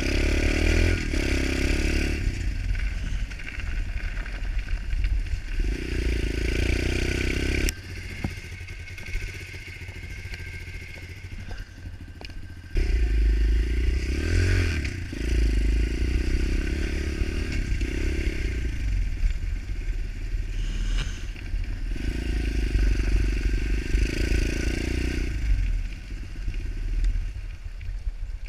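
Pit bike's small single-cylinder engine being ridden, with the throttle opened and closed again and again: several pulls lasting a few seconds each, the engine falling back to a quieter run between them.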